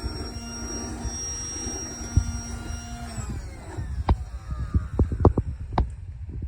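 Casdon Dyson toy cordless vacuum's battery motor whirring with a steady hum, winding down about three seconds in when the button is released. A string of sharp plastic clicks and knocks follows.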